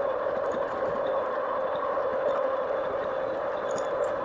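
2018 RadRover electric fat-tyre bike cruising on pavement: a steady hum from the rear hub motor and fat tyres over a rush of road and wind noise, with a few faint ticks.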